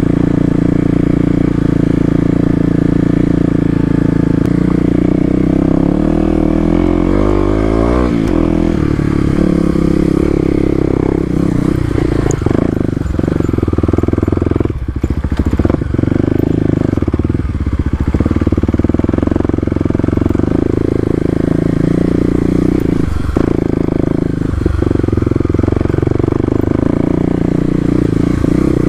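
Kawasaki KLX250's single-cylinder four-stroke engine running under way off-road, its revs rising and falling with the throttle, most sharply about seven seconds in. Scattered clattering knocks come through in the middle.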